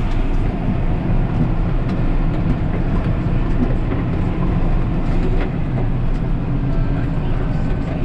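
Tractor engine running under way, heard from inside the cab, with scattered knocks and rattles as it jolts over rough cultivator ridges at the field's end.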